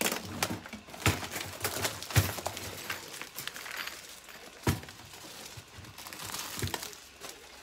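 Plastic film crinkling as wrapped stainless steel wire dish-rack parts are handled, with sharp clicks and knocks of the metal pieces, the loudest about two seconds in and another near five seconds.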